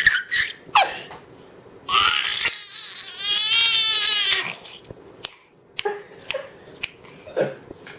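Baby boy's voice: one long, high-pitched arching cry about two seconds in, lasting a couple of seconds, after a brief shorter sound near the start. A few faint clicks and smacks follow in the quieter second half.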